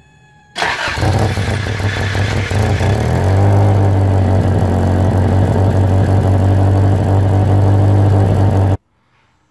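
Toyota AE86 Corolla's engine running, heard up close at a leaking exhaust flange in front of the catalytic converter. It comes in suddenly about half a second in and is uneven for a couple of seconds, then settles into a steady idle before cutting off abruptly near the end.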